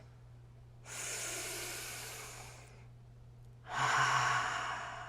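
A woman breathing deeply and audibly, two long breaths about a second apart, the second with a slight voiced sigh at its start.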